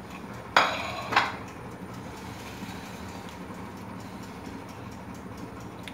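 A serving plate being moved on a countertop: two short scraping clatters about half a second apart near the start, then only a steady low background hum.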